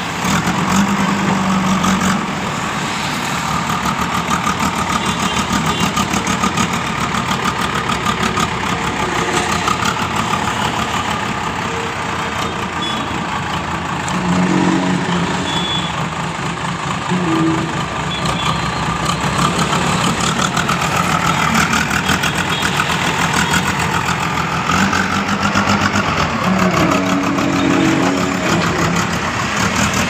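JCB backhoe loader's diesel engine running steadily under working load, its pitch rising and falling as the loader is worked, with a few short steady tones mixed in.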